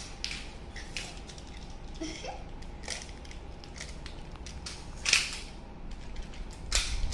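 Plastic magnetic building tiles clacking and snapping together as they are handled: a string of sharp, irregular clicks, the loudest about five seconds in.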